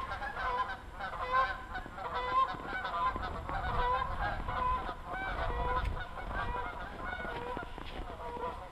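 A flock of geese honking, with many calls overlapping.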